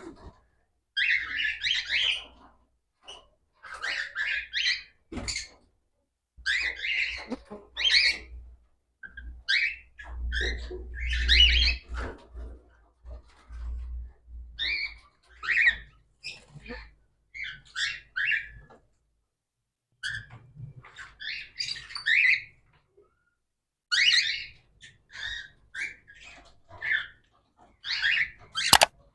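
Cockatiels calling: a string of short, high-pitched calls, one or two a second, with brief pauses between bursts.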